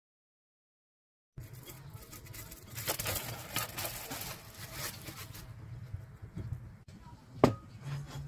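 After a second of silence, cling film crinkling and rustling as it is peeled off a glass bowl of hamburger meat mixture, loudest in the middle. A single sharp knock near the end.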